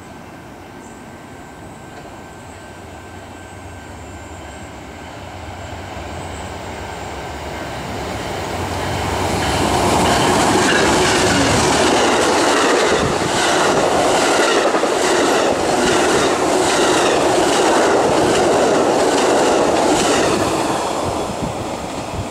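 Amtrak passenger train, led by a GE P42DC diesel locomotive, running through a station at speed: the sound builds as it approaches, then the bilevel passenger cars rush past close by with a steady clickety-clack of wheels over the rail joints, easing off near the end as the tail of the train passes.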